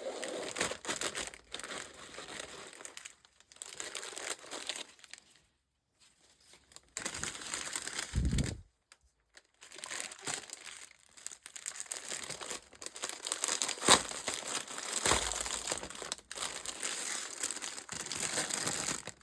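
Packaging crinkling and tearing as a wrapped parcel is cut and opened by hand, in irregular rustling bursts with short pauses. There are a couple of dull bumps and a sharp click along the way.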